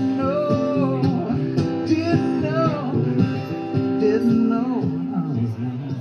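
Acoustic guitar strummed steadily, with a man's voice singing over it in long gliding notes without clear words.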